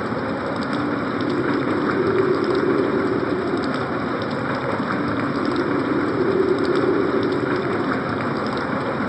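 Synthesized winter-storm effect from a Casio CTK-5000 keyboard: a steady rush of wind-and-rain noise, with a low howl that swells and fades every three seconds or so.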